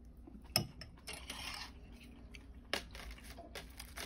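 Faint tableware sounds: a spoon scraping and clinking in a ceramic bowl as rice is mixed with steamed egg, with a few sharp light clicks and a short scrape about a second in. Near the end, chopsticks tap on the plastic tray of laver.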